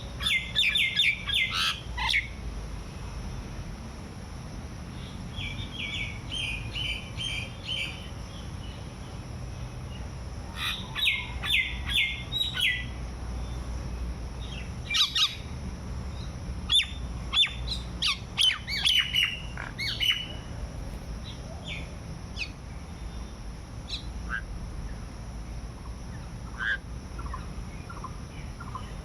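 Birds chirping in bouts of quick, repeated short notes, with a few seconds between bouts.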